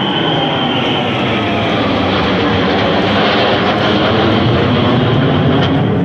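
Jet aircraft in a formation flypast, a large jet with four fighter jets, passing overhead: a steady wash of jet noise that grows slightly louder toward the end.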